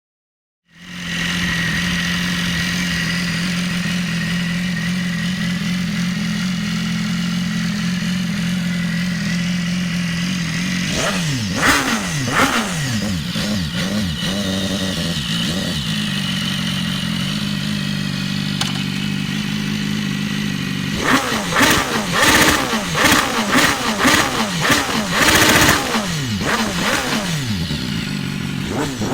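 2016 BMW S1000RR's inline-four engine running loud through an aftermarket Hurricane Evolution exhaust. It idles steadily, is revved in several quick blips about eleven seconds in, settles back to idle, then is blipped repeatedly from about twenty seconds in.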